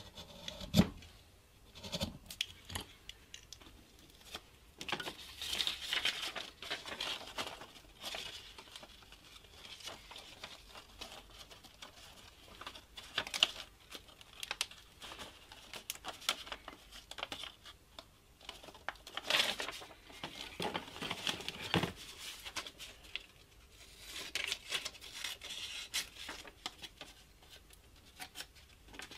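Paper pattern sheets being handled on a workbench, rustling and crinkling in irregular bursts, among scattered light clicks and taps of tools and wood. A sharp knock about a second in.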